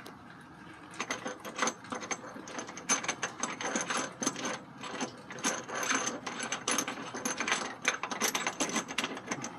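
Rapid, irregular clicking of a ratchet and socket as the factory IRS subframe bolt is spun loose by hand. The clicking starts about a second in.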